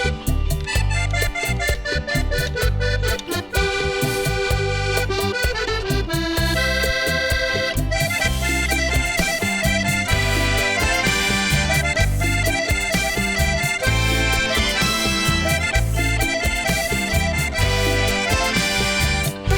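Symphonic band playing an instrumental passage of a vallenato tune, with a pulsing bass line under a running melody and no singing.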